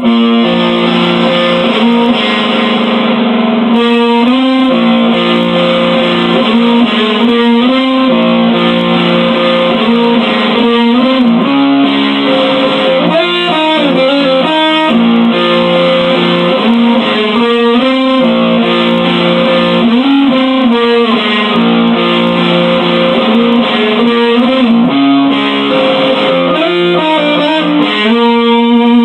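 Electric guitar playing an improvised instrumental with no vocals: held notes and chords that change every second or two.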